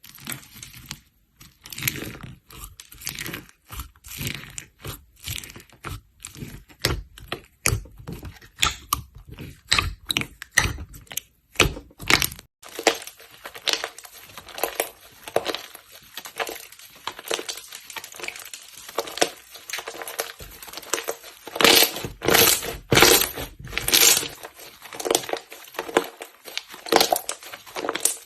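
Slime being handled by hand: an irregular, continuous run of short, sharp pops and squelches, louder for a few seconds near the end.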